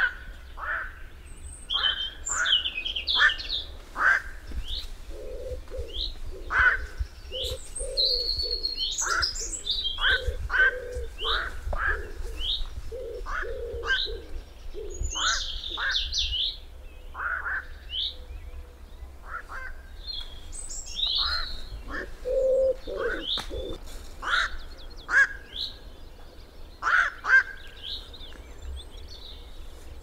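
A busy mix of bird calls: many short, sharp chirps and higher whistled notes, with a low pulsed purring series repeating through the middle.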